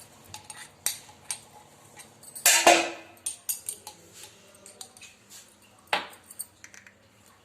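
Spoon clinking and scraping against a small bowl in scattered light clicks, with a louder clatter about two and a half seconds in and a sharp clink near six seconds.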